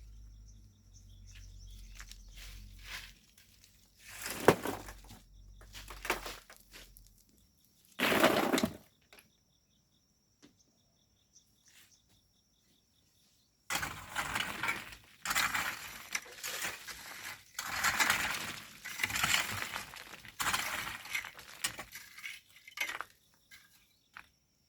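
Hand tools scraping into and throwing volcanic sand and stones, gritty crunching and clinking in irregular bursts, with a lull in the middle and steady work in the second half.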